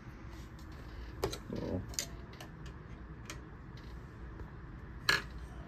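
Scattered small metallic clicks and taps of a screwdriver and fingers working on the needle clamp of a Consew 206RB1 industrial sewing machine while the needle is turned to align it; the sharpest click comes near the end.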